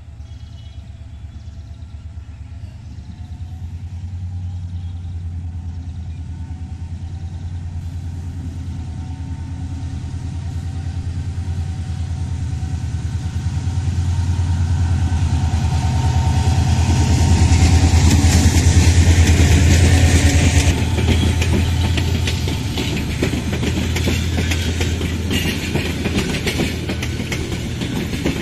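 A diesel locomotive hauling a passenger train approaches with a low engine rumble that grows steadily louder. It is loudest as it passes, about two-thirds in, and then the Chinese-built coaches roll by with a steady clatter of wheels on the rail joints.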